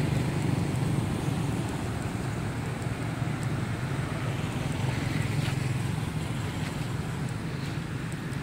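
Steady outdoor background noise: a low hum under a soft hiss, slowly getting quieter.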